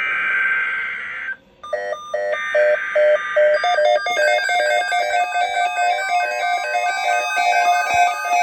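Emergency Alert System SAME header data bursts: a harsh digital screech, then a second one about two seconds later. A rapid string of electronic beeps starts between them, and from about four seconds in it becomes a busy electronic tone sequence like a tune.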